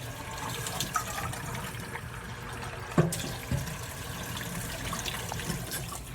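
Water running steadily from a tap, filling a dog's water bowl, with a few knocks and clinks and a sharp knock about three seconds in.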